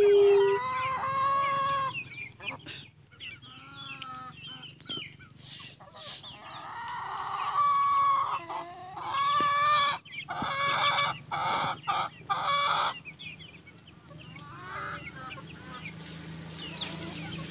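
Chickens clucking and calling, with several long drawn-out calls in a row and quieter clucks near the end.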